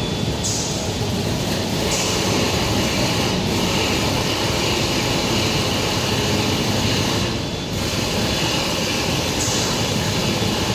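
Stone bridge saw running, its diamond blade cutting stone with a steady, dense grinding noise that briefly dips about seven seconds in.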